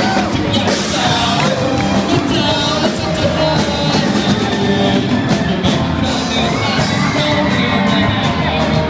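Live rock band playing: a male singer into a microphone over electric guitars, keyboard and a drum kit.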